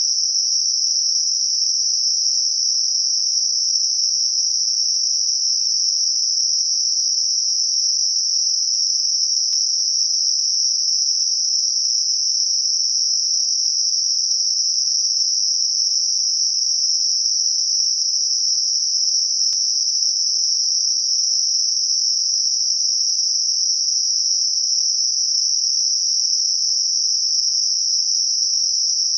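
Synthetic 5.5 kHz Gaussian narrowband noise, a tinnitus masker: a steady, unchanging high-pitched hiss confined to a band about 2 kHz either side of its centre, with nothing deeper beneath it.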